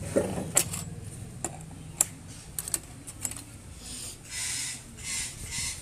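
Metal hand tools clicking and tapping against a steel work plate while copper filigree wire is handled, a few sharp clicks in the first half. Near the end, a run of short scraping strokes about one every two-thirds of a second.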